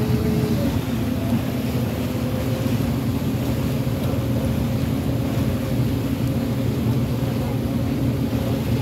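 A boat's engine running steadily under way, a low continuous drone.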